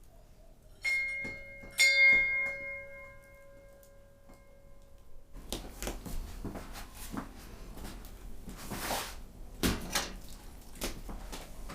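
Two bell-like ringing strikes about a second apart, the clear tone of the second ringing on and fading over about three seconds. From about five seconds in comes an irregular clatter of small knocks and scrapes.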